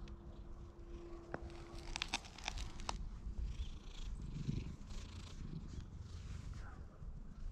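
Domestic cat purring close to the microphone as it is stroked, a low pulsing purr, with a few sharp clicks about two to three seconds in.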